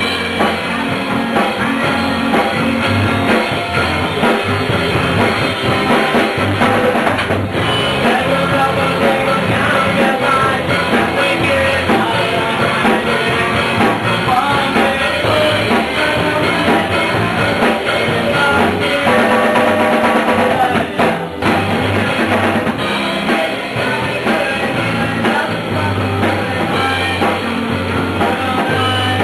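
Rock band playing live: electric guitars, bass guitar and drum kit, with a singer on microphone.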